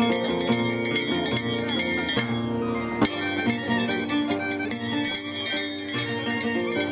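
Andean scissors-dance music: a violin and a plucked harp playing a traditional tune, with the metallic ringing and clinking of the dancer's tijeras, a pair of loose steel blades struck together in one hand. There is one sharp clack about three seconds in.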